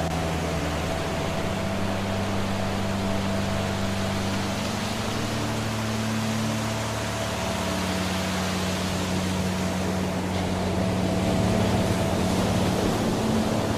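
Steady rush of a waterfall, with a soft ambient-music drone of held low notes underneath that change pitch a few times.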